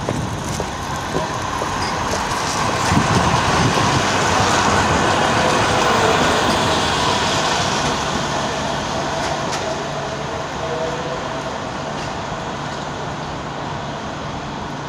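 Manchester Metrolink M5000 tram (Bombardier Flexity Swift) passing close by on street track. Its running noise is loudest a few seconds in, then slowly fades as it pulls away.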